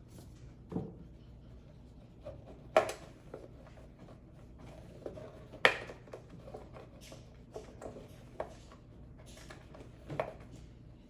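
Handling noises of a car door mirror being wiped clean: scattered light plastic clicks and knocks, with two sharper knocks about three and six seconds in.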